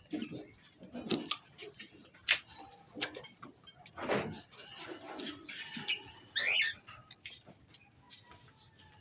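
Cockatiels giving short chirps among scattered clicks and knocks, with one louder knock about four seconds in.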